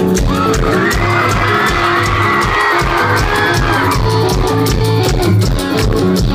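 Rock band playing live through a festival PA, heard from within the crowd: a fast, steady kick drum of about four beats a second with cymbals, and a wavering melody line over the band from about one to four seconds in.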